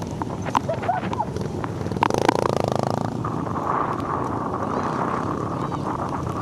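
Pit bike engines running, one louder for about a second some two seconds in, then a steady higher engine drone.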